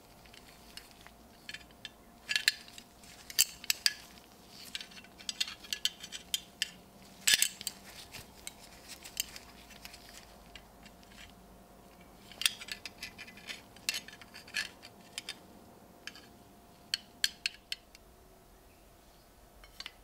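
Two metal belt buckles handled in gloved hands: irregular light clicks and clinks as the buckles touch and are turned over. The loudest come a little past two seconds in and again about seven seconds in.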